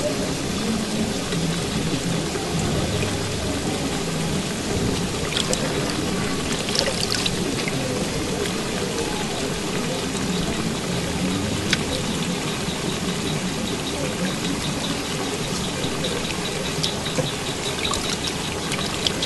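Water splashing and trickling in a plastic basin as hands rinse pieces of fish in it, lifting them out and letting the water run off.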